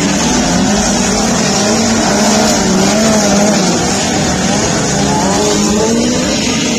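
Several race car engines running at speed together, their pitch rising and falling as they accelerate and back off.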